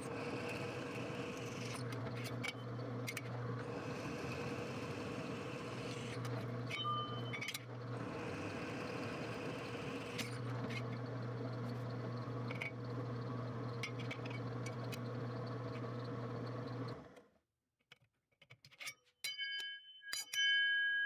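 Drill press motor running steadily while holes are drilled through a hardened saw-blade steel blank; it shuts off about seventeen seconds in. Near the end the steel blank rings with a clear, lasting metallic tone of several pitches as it is picked up.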